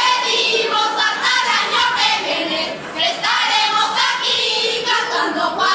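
A group of women singing a carnival song together in chorus.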